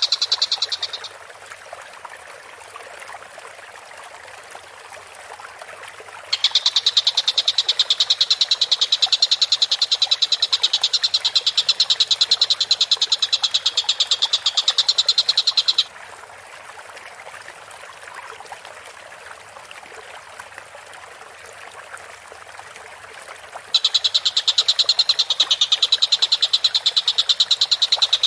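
Tengkek buto kingfisher calling in long, fast rattling trills pitched fairly high, each run lasting several seconds with quiet pauses between; a steady low hiss fills the gaps.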